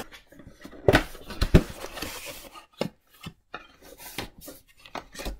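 A cardboard box being opened by hand: two sharp knocks about a second in, a rasping scrape around two seconds in, then scattered clicks and rustles of cardboard as the lid flaps are lifted.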